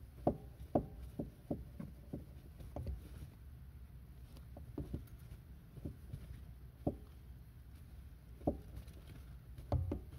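A car pedal being pumped by a foot in a canvas Vans Old Skool sneaker gives short, dull knocks. There is a quick run of about six in the first two seconds, then single knocks about a second apart, over a steady low rumble.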